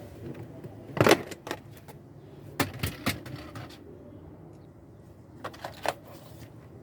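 Hand tools and metal parts knocking and clinking as the steering system is worked on: a loud knock about a second in, three more between two and a half and three seconds in, and a pair near the end.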